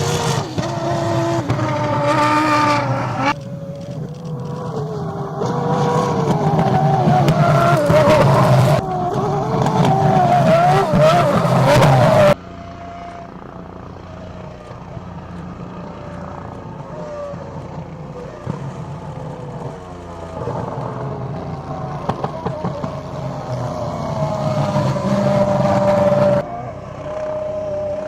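Red Bull Formula One car's 2.4-litre V8 running, its pitch rising and falling as it revs up and down. Loudest in the first twelve seconds, then quieter, with several sudden jumps in level and pitch.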